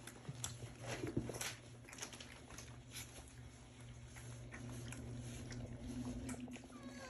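Young puppies nibbling and nosing at a plastic food dish, faint scattered clicks and crunches. A short high squeak from a puppy comes near the end.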